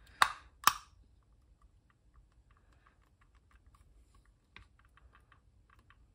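Knife blade prying at the seam of a plastic case: two sharp plastic clicks within the first second, then a string of faint light ticks and scrapes as the blade works along the housing.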